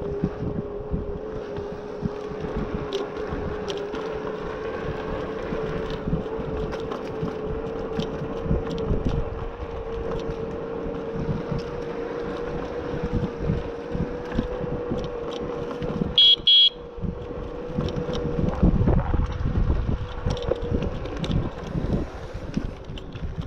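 Electric scooter's 500 W motor whining with one steady tone that slowly rises in pitch as it gathers speed, over a low rumble of wind and road with small knocks from bumps. About sixteen seconds in there is a short high beep, and the whine stops near the end.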